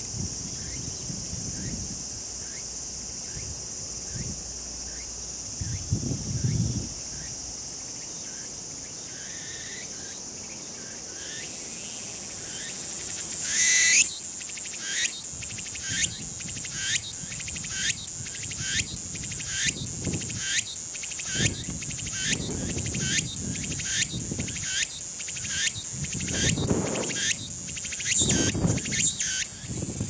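Meimuna opalifera (tsukutsuku-boshi) cicada song. A quieter steady buzz with faint regular chirps fills the first half. About halfway in, a rising buzz opens the song, followed by loud rhythmic phrases a little under one per second that quicken near the end.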